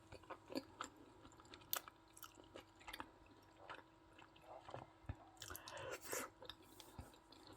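Faint close-up chewing of soft braised pork knuckle, with scattered wet mouth clicks and smacks.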